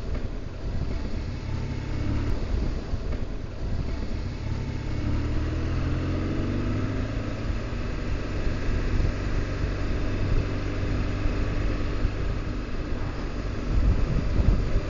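BMW R1200GS Adventure's boxer-twin engine running under way, with wind rushing over the microphone. The engine note rises as the bike accelerates about five seconds in, and the noise gets louder near the end.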